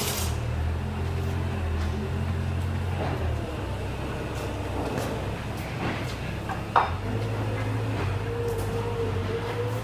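Steady low mechanical hum, with a single sharp click just before seven seconds in.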